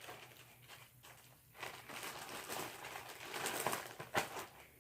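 Plastic sandwich bag crinkling and rustling as cotton balls are pushed into it, with a couple of sharper crackles near the end.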